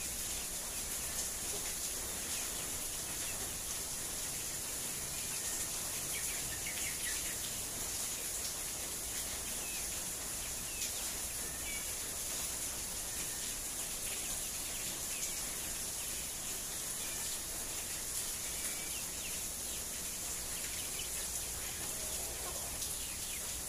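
Steady backyard ambience: a constant high-pitched hiss, with a few faint short chirps scattered through it.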